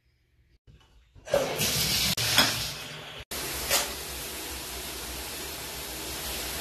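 Shower turned on at its single-handle valve: water starts spraying about a second in and runs as a steady hiss, broken off for an instant just past the middle.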